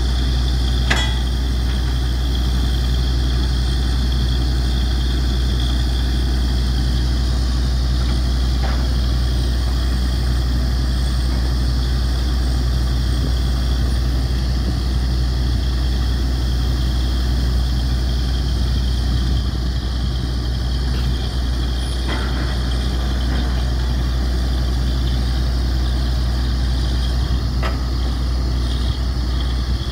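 Truck-mounted borewell drilling rig running steadily: an even, deep engine drone with a strong low hum, and a few faint clicks now and then.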